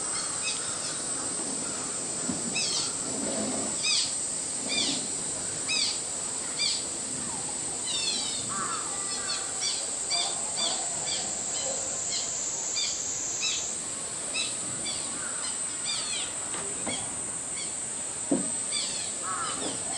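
Steady high-pitched insect drone with birds calling over it in short repeated chirps, about two a second; a soft knock near the end.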